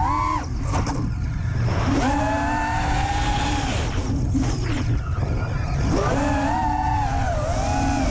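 Brushless motors and propellers of an FPV racing quadcopter (EMAX RS2306 2400kv) heard through its onboard camera: a buzzing whine that rises and falls with throttle, in two long surges with a dip between. Wind rumble on the microphone runs underneath.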